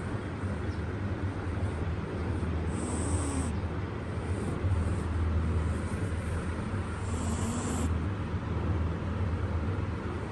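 Cat hissing, two short hisses about three seconds in and again near eight seconds, over a steady low rumble.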